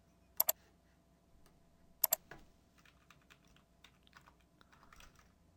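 Two sharp double clicks, about a second and a half apart, then light, uneven typing on a computer keyboard.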